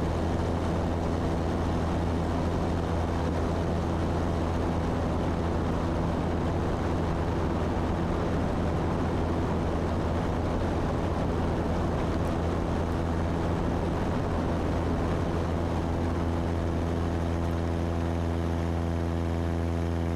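Engine and propeller of a CubCrafters Carbon Cub FX3 ski-plane, its horizontally opposed four-cylinder engine running at a steady, unchanging drone during the climb-out after takeoff.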